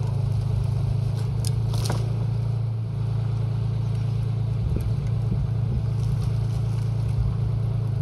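Schäffer 2024 SLT yard loader's diesel engine idling steadily, with branches rustling and scraping as they are piled onto it and a short crackle of twigs about two seconds in.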